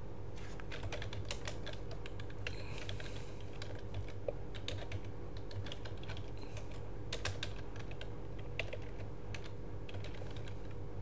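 Computer keyboard keys clicking in slow, irregular typing, over a steady low hum.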